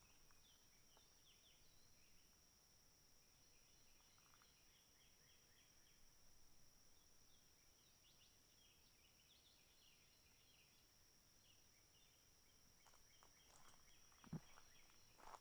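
Faint outdoor ambience: a steady high-pitched whine, with short runs of quick high chirps from a bird or insect coming and going. Footsteps start again near the end.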